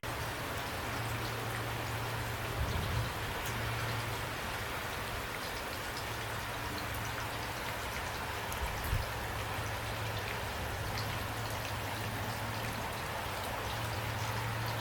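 Steady rain falling, with many individual drops ticking close by over an even rush, a low steady hum underneath, and two brief low thuds about three and nine seconds in.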